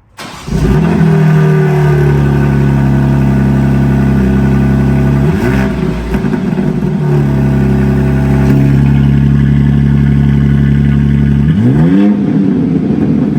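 BMW M3/M4 twin-turbo straight-six starting up, with its exhaust fitted with a single non-resonated mid-pipe (resonator delete): it catches right at the start, runs steadily, and is blipped twice, about five seconds in and again near the end.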